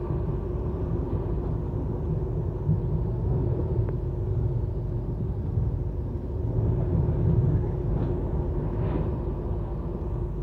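Manchester Metrolink tram heard from inside while running along the track: a steady low rumble of wheels and running gear with a steady hum over it.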